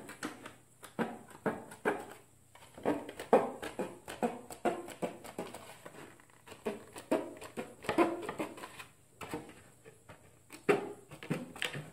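Tin snips cutting along the edge of a white plastic stormtrooper armor piece: an uneven run of sharp snips, a few each second, as the end is trimmed off.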